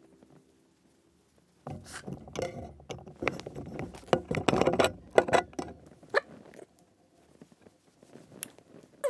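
Soft fabric rustling and scuffling on plush toys and bedding as a kitten scrambles about and a hand handles the plush, with many small sharp taps mixed in. It starts about two seconds in, is busiest in the middle, dies away after about six seconds, and a single short click comes near the end.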